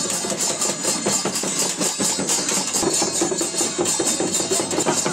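Shamans' dhyangro frame drums beaten in a fast, even, unbroken rhythm during a Tamang shamanic ritual.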